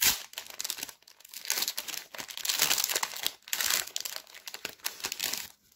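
Foil wrapper of a Pokémon trading card booster pack crinkling in a rapid, irregular run of crackles as the pack is handled and the cards are slid out of it.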